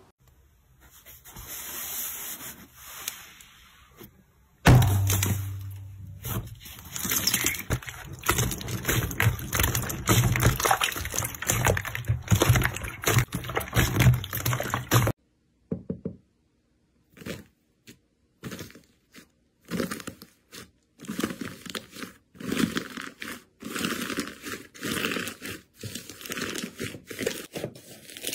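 Hands working slime. A faint crackle comes from crunchy red slime. From about five seconds in there is a dense run of loud squishing with a low rumble as clear blue slime is pressed by hand. From about fifteen seconds in come short separate crackly strokes as fluffy white slime is pulled and stretched.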